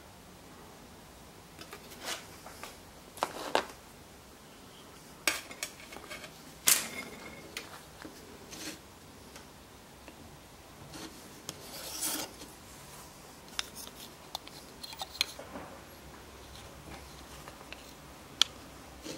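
Small wooden gauge parts and a wooden-handled hand screwdriver handled on a workbench: irregular light clicks and knocks with a few short scrapes as small screws are fitted and turned by hand.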